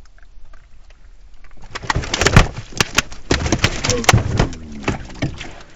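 A big fluke thrashing in the landing net on a kayak: a quick flurry of slaps, knocks and splashes that starts about two seconds in and dies down near the end, as the fish nearly jumps out of the net.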